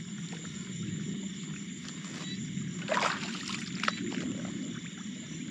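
Shallow water sloshing as a person wades through a flooded field and works a set hook line, with a louder splash about three seconds in. Insects chirr steadily in the background.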